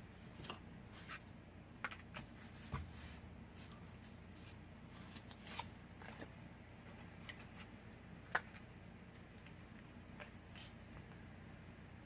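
Paper and craft pieces being handled on a work table: faint rustling with scattered small clicks and taps, and one sharper click about eight seconds in.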